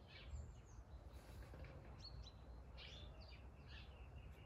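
Near silence: a few short, faint bird chirps over a steady low background rumble.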